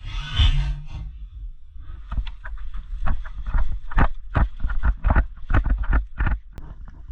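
Footsteps thumping at a brisk walk or jog, about two to three a second, with rustling of clothing and gear; a burst of rustling in the first second.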